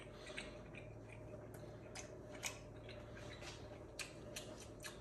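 Eating utensils clicking and scraping against a plate while a piece of meatloaf is taken, a few irregular sharp clicks, the loudest about halfway through, over a steady low hum.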